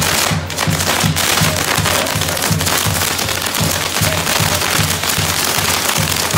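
Castillo firework tower burning, its spinning wheels and set pieces hissing and crackling steadily in a shower of sparks. Band music with a steady low beat of about four pulses a second plays underneath.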